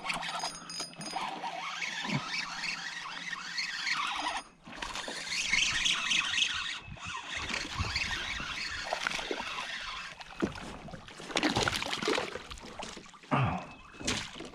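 A fish being fought and landed from a kayak: a fishing reel being cranked, the hooked fish splashing at the surface, and a louder splash near the end as it is scooped into a landing net.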